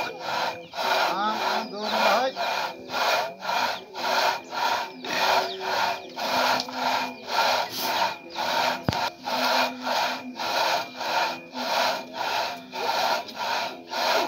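Two-man rip saw cutting lengthwise through a propped log, making an even rasping stroke a little over twice a second as it is pushed and pulled.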